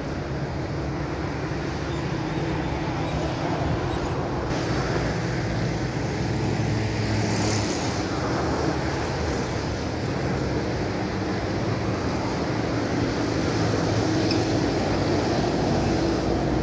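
Steady rumble of motor vehicle engines and road traffic, with a low hum throughout.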